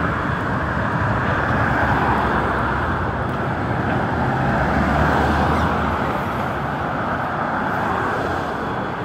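Street traffic: cars and a pickup truck driving past close by, a steady wash of engine and tyre noise that swells as vehicles pass.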